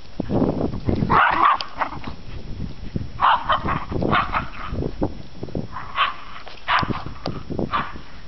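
Two border terriers play-fighting, giving short barks and yips in bursts, once about a second in and then several times from about three seconds on, over low thuds.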